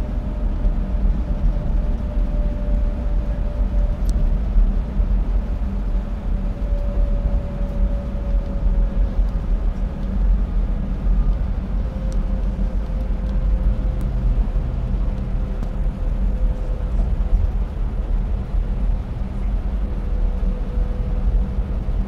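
Bus interior noise at speed: a steady low rumble of engine and road, with a faint whine that slowly drops in pitch as the bus slows from about 75 to 60 km/h.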